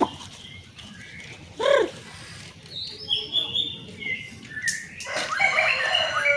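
White-rumped shama singing: scattered whistled and chirping notes, turning into a fast, dense run of quick falling notes in the last second and a half.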